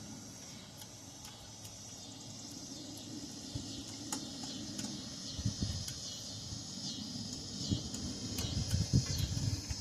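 Quiet tool handling as loosened bolts are spun out of a Kohler V-twin engine: a few light clicks, then irregular low knocks from about halfway on, over a steady high chirring of insects.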